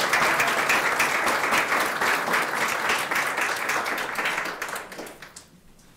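An audience applauding, many hands clapping together. The applause dies away about five seconds in.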